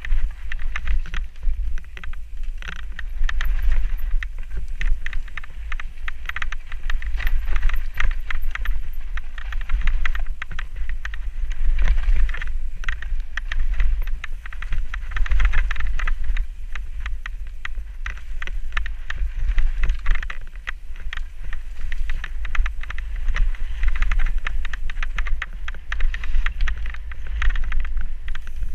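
Mountain bike descending rough woodland singletrack: tyres crunching and rattling over dirt and loose stones, with a heavy, steady rumble of wind buffeting the camera microphone.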